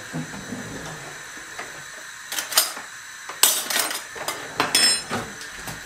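Pudding-powder sachet being handled: a run of sharp crinkling crackles from a little over two seconds in, over the faint steady hiss of a gas burner.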